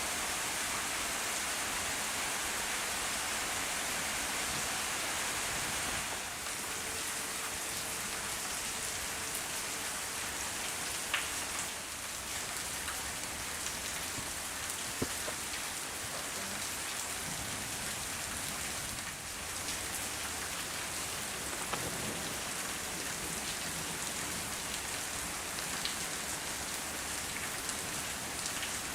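Steady rain: an even hiss of falling rain, with a couple of small ticks midway.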